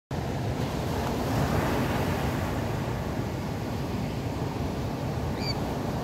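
Atlantic Ocean surf breaking and washing up a sandy beach: a steady rushing noise, with a low rumble of wind on the microphone. A brief high chirp near the end.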